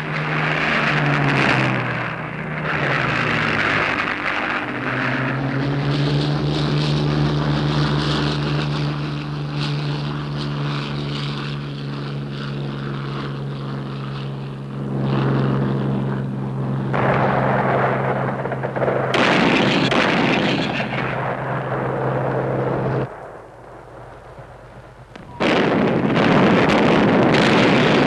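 Propeller aircraft engine running, its pitch rising over the first few seconds and then holding a steady drone that cuts off about 23 seconds in. After a short lull, a loud rushing noise starts suddenly near the end.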